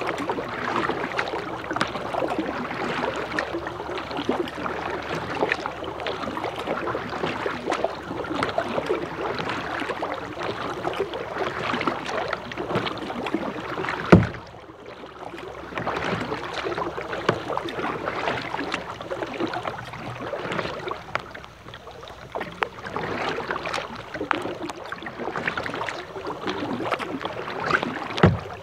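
Rain pattering steadily on a plastic kayak and the river around it, a dense crackle of tiny ticks, with the sounds of paddling. A single loud thump about halfway through, after which it is briefly quieter, and another thump near the end.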